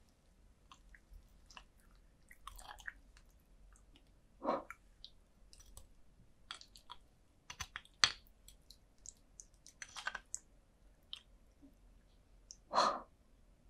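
Metal spoon scraping and clicking against the inside of roasted beef marrow bones as the soft marrow is scooped out, with many light clicks and a few louder strokes.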